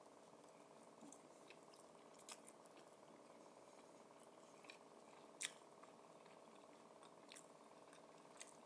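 Quiet chewing and biting of fried snacks: a few scattered soft mouth clicks and smacks, the sharpest about five and a half seconds in, over a faint steady room hum.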